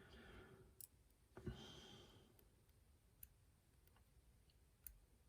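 Mostly near silence, with a few faint, isolated clicks of a lock pick and tension wrench working the pins of a challenge pin-tumbler lock. The clearest click comes about one and a half seconds in.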